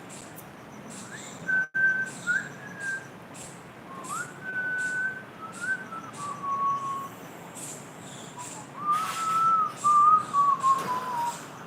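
A person whistling a slow, wavering tune in short phrases of held notes and slides, louder near the end, with scattered light clicks and rustles.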